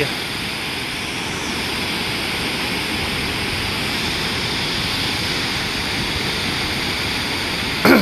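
Large waterfall rushing steadily: an even, unbroken noise.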